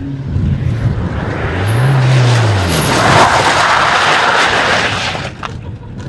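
Rally car driven hard along a loose dirt track. Its engine note rises and falls about two seconds in, then a loud rush of tyre and track noise comes as it passes close, dying away shortly before the end.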